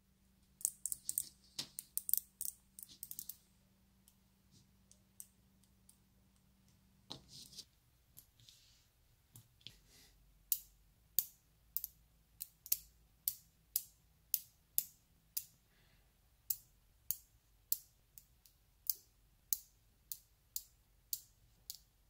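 Small neodymium magnetic balls clicking sharply as clusters snap together in the hands. A quick flurry of clicks comes in the first few seconds. After that there is a steady run of single clicks, a little under two a second.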